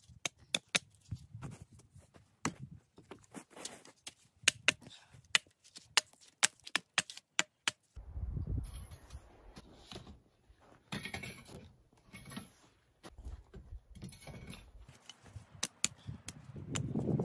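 Wood campfire crackling, with sharp irregular pops several a second. About eight seconds in, low rumbling and rustling noise joins the thinning pops, and it is loudest near the end.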